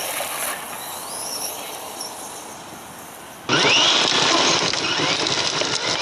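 Brushless electric RC monster truck accelerating at full throttle: a high motor and drivetrain whine rising in pitch as it spins up. The tyres churn dirt and gravel. A second, louder full-throttle launch begins about three and a half seconds in, again with a rising whine.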